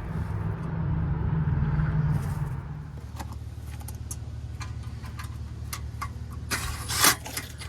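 Steady low rumble of a vehicle running, heard from inside, swelling briefly about a second in. A few sharp clicks follow, then a louder rustle and knock near the end.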